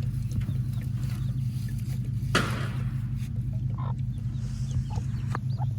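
A broody Buff Orpington-cross hen clucking among her newly hatched chicks, which peep in short high chirps, more of them near the end. A louder rough squawk or rustle comes about two and a half seconds in, over a steady low hum.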